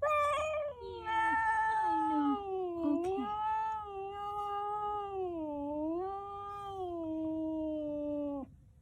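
A cat yowling: one long, drawn-out call that wavers up and down in pitch, with a short break under a second in, and cuts off suddenly near the end.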